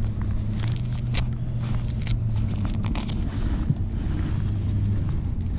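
Bass boat's outboard motor running steadily with a low hum, with a few sharp clicks and knocks from handling on the deck.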